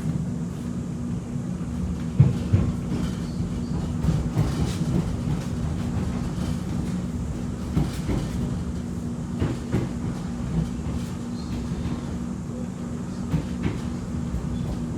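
X'Trapolis 2.0 electric train running, heard from inside the carriage: a steady low rumble with a constant hum, and wheels knocking over rail joints now and then, sharpest about two seconds in.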